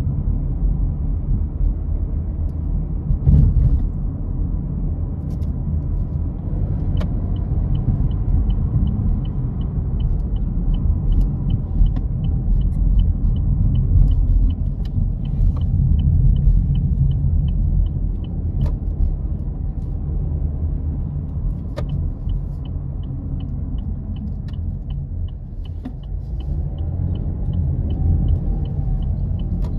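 A car driving, heard from inside, with a steady low road rumble. A turn signal ticks about twice a second in two long runs, the first starting about a quarter of the way in and the second in the last third, with a few sharp knocks along the way.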